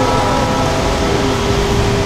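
Wako clock tower's chime bells, their last notes ringing on and fading, over steady street traffic noise.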